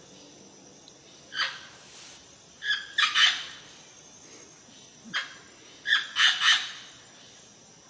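Amazon parrot calling: about eight loud, short, rough squawks, some single and some in quick runs of two or three.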